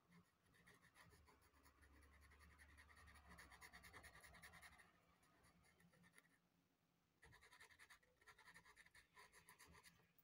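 Faint scratching of a Derwent pastel pencil on Clairefontaine Pastelmat paper, laid down in rapid short shading strokes. The strokes pause briefly about six and a half seconds in, then resume.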